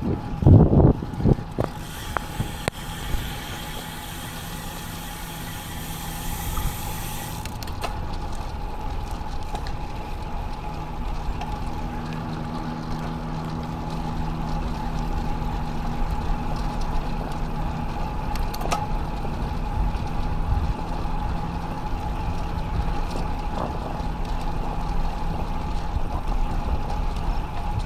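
Steady wind and road noise on an action camera riding on a moving road bike, with a high hiss for a few seconds near the start. A motor vehicle's engine is heard passing for a few seconds near the middle.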